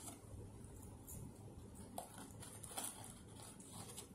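Faint rustling of fast-food paper wrapping as it is handled while eating, with a few small sharp clicks, one about two seconds in and another near three seconds.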